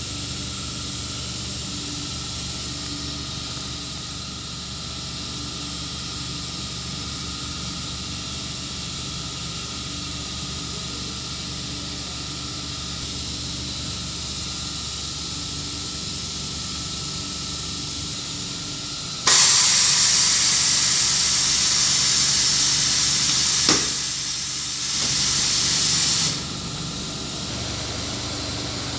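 Steady hum of a CNC router machine with a faint whine. About two-thirds of the way in, a loud blast of hissing air cuts in for several seconds and ends with a sharp click. A second shorter hiss of air follows.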